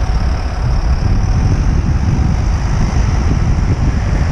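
Steady wind rumble on the microphone of a riding cyclist's camera, with city road traffic underneath.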